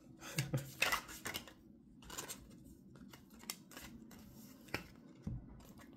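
A deck of tarot cards being handled in the hands, shuffled and pulled out onto the table, giving irregular crisp snaps and flicks of card stock.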